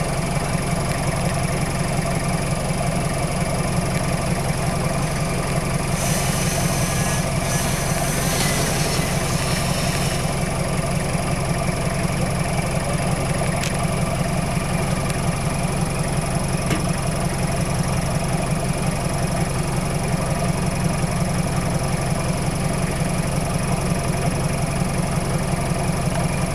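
Off-road vehicle's engine idling steadily with an even low pulse. A rushing hiss rises over it about six seconds in and lasts about four seconds.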